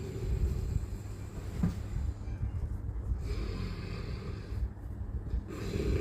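A person snoring: a low sound that rises and falls with slow breaths.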